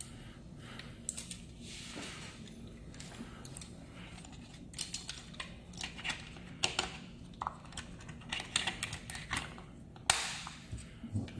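Hard plastic clicking and tapping as a sensor-and-button module is handled and pressed into a plastic housing. The clicks come in scattered groups, busiest in the second half, with a longer rustle of plastic near the end.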